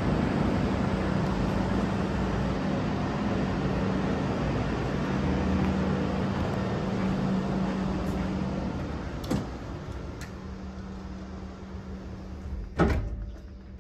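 Steady outdoor noise with a low hum on a cruise ship balcony, growing quieter after about nine seconds. A sharp click follows, then a single thump near the end as the sliding balcony door is shut, and the room is quieter after it.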